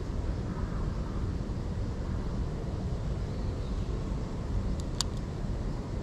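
Steady low background rumble, with a single sharp click about five seconds in.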